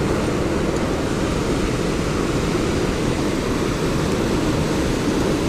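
Steady rushing of a river running high, with no breaks or separate events.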